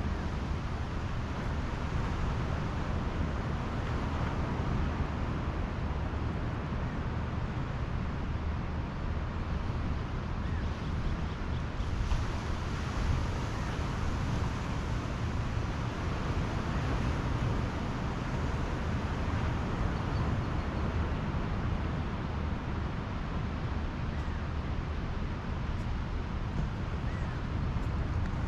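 Ocean surf washing steadily onto a beach, with wind buffeting the microphone and adding a low rumble.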